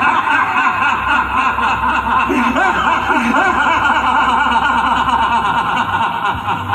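Crowd of many voices talking and calling out at once, a dense, continuous hubbub.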